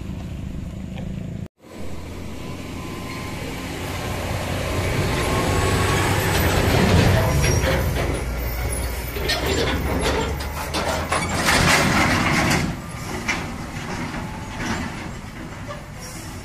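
Diesel truck engine labouring as a heavy truck pulls a flatbed trailer uphill past close by, loudest about seven seconds in, followed by a string of short hisses and rattles. The sound cuts out briefly about one and a half seconds in.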